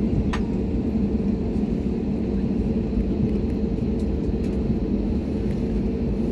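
Steady low rumble of an Airbus A320's engines and air system heard inside the passenger cabin while the airliner taxis after landing, with a short click about a third of a second in.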